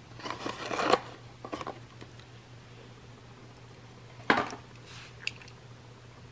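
Clear plastic blister packaging crinkling as it is pulled apart, loudest in the first second, with a short second rustle soon after. About four seconds in there is one sharp clack as the small die-cast metal toy engine is handled, and a lighter click a second later.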